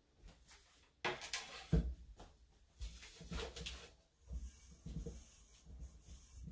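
Aluminium cake pans and glass goblets of a tiered stand clacking as they are set down and handled, with a sharp knock about a second in. A cloth rubs over the tiers between softer knocks.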